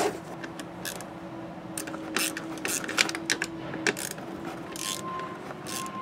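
Irregular light clicks and rattles of a power window regulator's metal rails, cable and fittings being handled and worked by hand.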